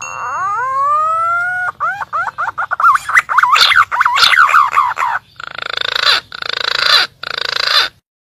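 Green pigeon (punai) calling. First comes one long rising whistle, then a quick run of short wavering whistled notes, then three harsh rasping bursts, and the call stops abruptly near the end. This is a lure call used to draw punai in.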